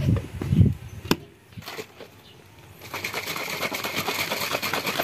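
Hands pressing a red snap lid onto a plastic shaker cup, with a few handling thumps and a click. About three seconds in, the cup is shaken hard: a fast, steady rattling slosh of the liquid inside as egg yolk is mixed into the drink.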